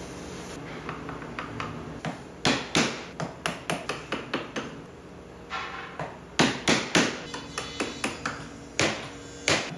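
Wooden mallet striking a bench chisel to chop into walnut: quick knocks, about four a second, in two runs, with a few fainter taps at the start.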